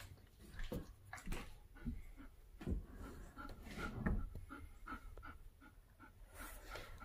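German Shepherd panting with her mouth open, quick short breaths at about two to three a second, mixed with a few soft low thumps, the loudest about four seconds in.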